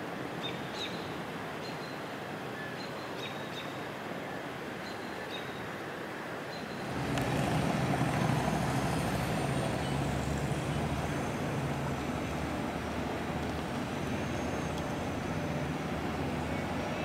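Outdoor ambience with a few faint high chirps, then about seven seconds in the low, steady engine rumble of a large motor vehicle sets in and keeps running.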